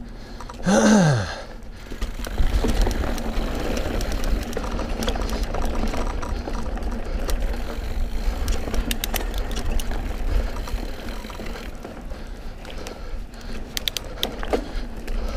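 Mountain bike riding over a dirt singletrack trail: steady tyre rumble and wind noise with scattered rattles and clicks from the bike. About a second in, a short groan from the rider falls in pitch, and it is the loudest sound.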